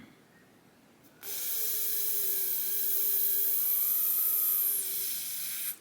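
A steady, loud hiss starting about a second in, holding for some four seconds with a faint steady tone running through it, then cutting off abruptly.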